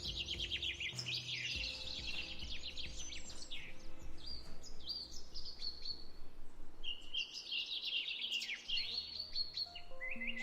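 Songbirds chirping and trilling in quick, dense runs, over low sustained tones.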